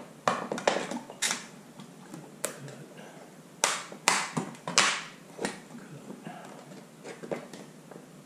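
Box cutter piercing and cutting holes in a plastic bottle: a string of irregular sharp snaps and crackles, with a cluster of louder snaps about halfway through.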